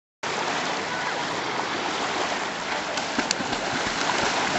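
Steady rushing of water that cuts in abruptly a moment in, with a faint click about three seconds in.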